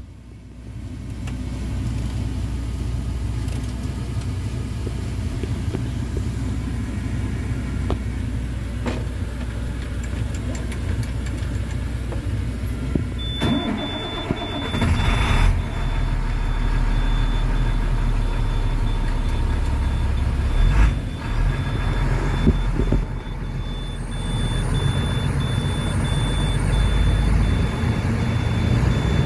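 Diesel engine of a 2006 International 4400 truck being started about halfway through, then running at idle around 1000 rpm. A high warning beeper in the cab pulses steadily from shortly before the start onward.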